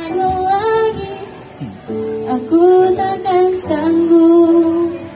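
A girl singing a slow pop ballad solo over instrumental accompaniment, holding long notes.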